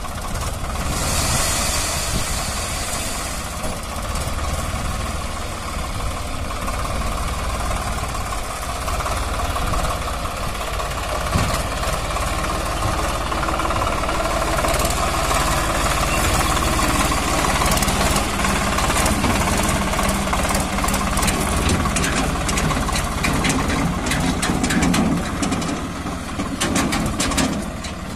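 Swaraj 744 FE tractor's three-cylinder diesel engine running steadily, growing somewhat louder about halfway through.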